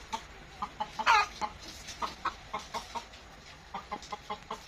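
A chicken clucking in quick runs of short notes, with one louder, longer squawk about a second in.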